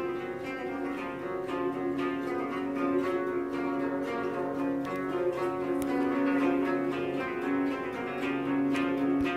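Koto, the Japanese 13-string zither, being played: a steady flow of plucked notes that ring on over one another.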